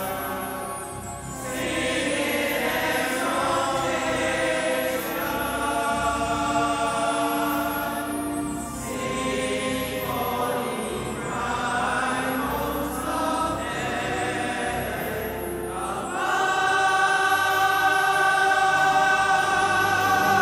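Choir singing slow, sustained chords in long phrases, swelling louder and fuller near the end.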